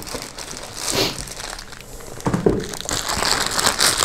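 Plastic bags crinkling and rustling as bagged power cables are handled and lifted out of a cardboard box. There are a few knocks about a second in and again past the middle, and the crinkling gets denser near the end.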